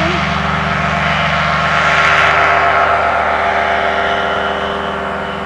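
Quad City Challenger II ultralight's engine and propeller running steadily as it lifts off and climbs past, loudest about two seconds in, then fading as it flies away.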